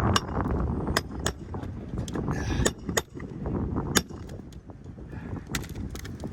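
Irregular sharp metallic clinks and knocks from hand tools working on roofing nails, shingles and a turbine vent's metal base, about eight in all, over a low rumble of wind on the microphone.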